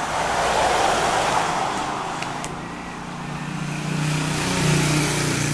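Road traffic: a vehicle passes by in the first two seconds, then the steady hum of an engine grows louder toward the end.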